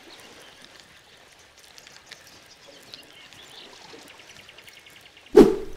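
Small waves washing gently on a sandy shore, with a short run of faint quick ticking about four seconds in. Near the end comes a single loud, brief thump.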